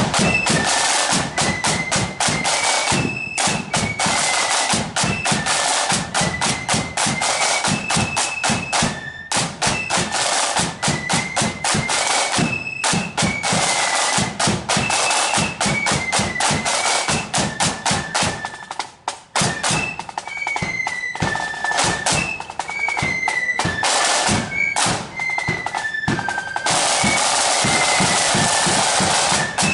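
Marching flute band playing: massed side drums rattling with a bass drum beat under a high tune on the flutes, with a brief break in the drumming about two-thirds of the way through.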